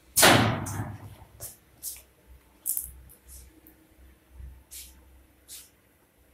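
Automatic panel spray-painting machine's spray guns hissing in short bursts while applying the finish coat: one loud hiss about a quarter second in that fades over most of a second, then about seven short, sharp puffs at irregular intervals.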